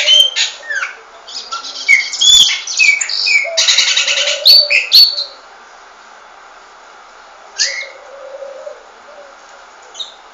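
Pet songbirds chirping and singing: a dense run of whistled chirps with sweeping pitch and a short rapid trill for about five seconds, then only a couple of isolated chirps.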